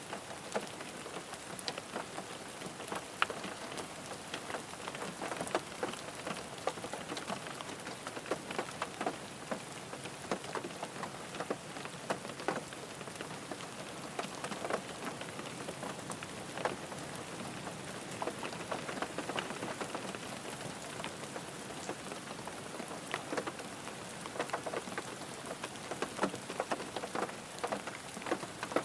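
Steady rain falling on a car, a constant hiss with many irregular individual drops tapping on the body.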